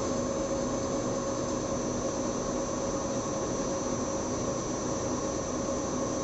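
A 620mm paper slitting machine running steadily: a constant mechanical hum with a few held whining tones over an even rumble.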